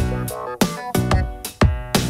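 Background music with a steady beat: regular drum hits over held notes.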